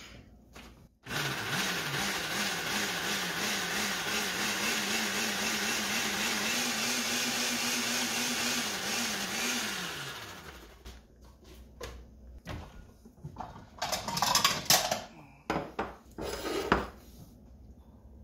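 Countertop blender running for about nine seconds, blitzing a yogurt-based Caesar dressing until smooth. Its motor pitch wavers, then rises and holds, and falls away as it switches off. A few knocks and clatters follow.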